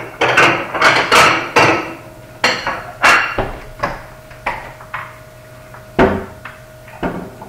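Aluminium motorcycle engine case knocking and clattering against the workbench as it is shifted into position: a quick run of sharp knocks in the first two seconds, then single knocks about every half second.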